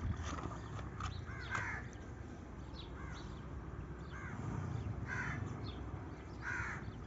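Crows cawing: a string of short, arched caws about every second, over a low steady rumble.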